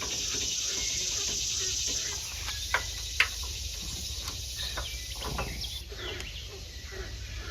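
A steady hiss for about two seconds, then a few sharp clicks and taps of hand work on a small engine's fuel line, over steady chirping of insects.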